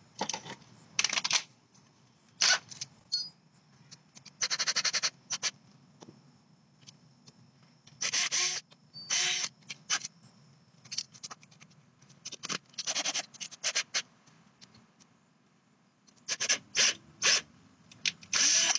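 Cordless drill run in about a dozen short bursts of a second or less, with pauses between them, driving screws into wood.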